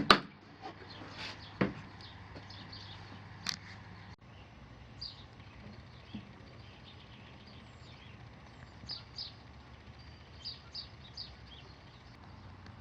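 Plastic blow-molded socket case latch snapping shut: a sharp click, then a knock about a second and a half in and a lighter tick soon after. After that, faint bird chirps come and go over a low hum.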